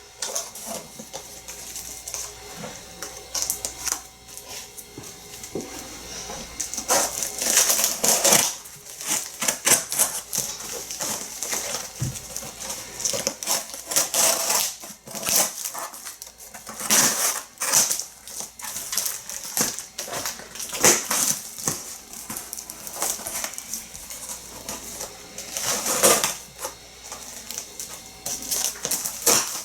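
Packing materials being pulled open and handled: irregular crackling, rustling and tearing with scattered clicks and bumps, coming in repeated bursts.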